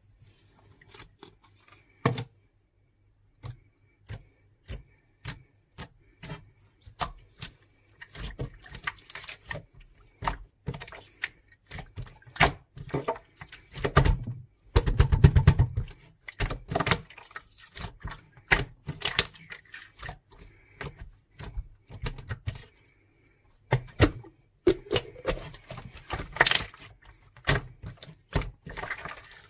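Irregular close-up clicks and taps from something being handled by hand, sparse at first and then coming thick and fast, with a louder rustling, squashing stretch about halfway through and another near the end.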